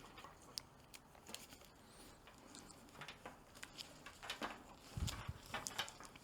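Faint, scattered small clicks and rustles of wires and tape being handled, with a low thump about five seconds in.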